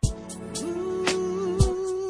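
Background music starts abruptly: a song with a drum beat and a long held note over it.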